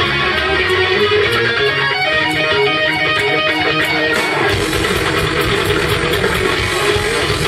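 Heavy metal band playing live: electric guitars picking a melodic line over drums with steady cymbal ticks. A little past halfway the bass and drums come in much fuller and heavier.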